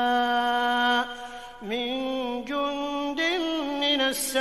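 Solo male voice reciting the Quran in melodic tajwid style. It holds one long drawn-out note for about a second, breaks briefly, then moves into a phrase that rises and falls in pitch.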